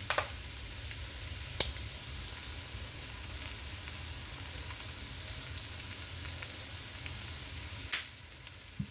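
Rice with tomato paste and green pepper frying in a non-stick pan before any water is added: a faint, steady sizzle over a low hum, with three sharp clicks, one just after the start, one about a second and a half in, and one near the end.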